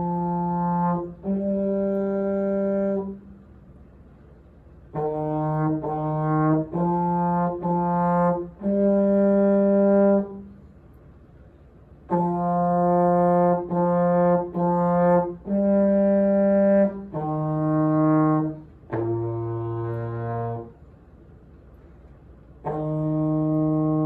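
Solo tenor trombone playing a simple beginner exercise in short phrases of separate held notes, with brief pauses between phrases. Near the end it begins the final note and holds it long: the fermata.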